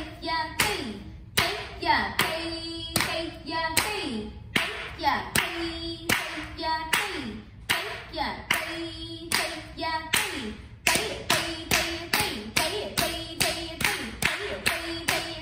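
Bare feet stamping flat on a wooden floor in the steady rhythm of Bharatanatyam Thattadavu, about two stamps a second, with a voice chanting the step syllables over them. About 11 seconds in the chanting stops and the stamps go on alone, a little faster.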